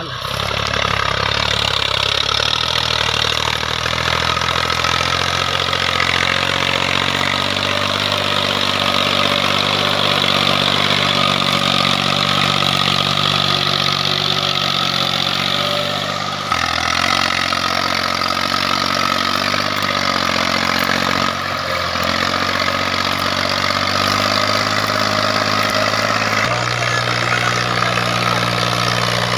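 Massey Ferguson 240 tractor's three-cylinder diesel engine running steadily under load while hauling a heavily loaded trolley. Its engine note shifts to a new pitch three times: about halfway through, a few seconds later, and again near the end.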